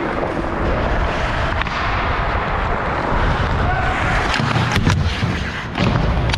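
Ice hockey skates scraping and carving on the ice under a steady low rumble of wind on the microphone, with a few sharp clacks of stick and puck against the boards about five seconds in.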